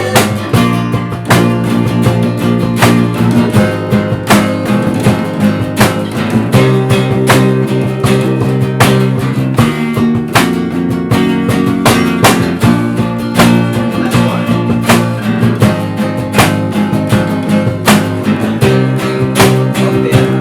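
Acoustic guitar strumming chords in a steady rhythm, an instrumental passage of a pop-rock song with no singing.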